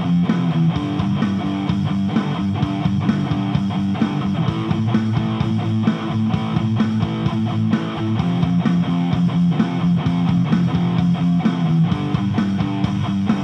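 Stratocaster-style electric guitar fitted with a homemade bridge pickup, played with fast, continuous picking of notes and chords.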